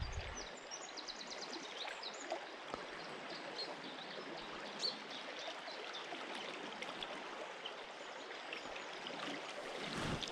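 Swift, high river current rushing past the wading angler: a steady wash of moving water.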